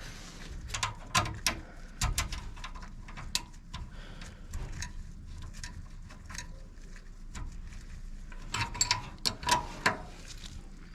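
Irregular sharp clicks and taps of hand tools at work. They are thickest in the first couple of seconds and again near the end, sparser in between.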